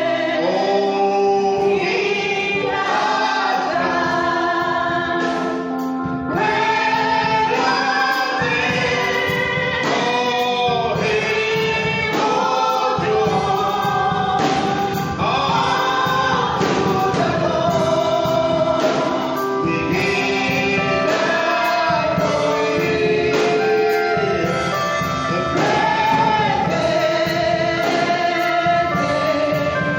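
Gospel choir singing a praise song over instrumental backing with a steady beat.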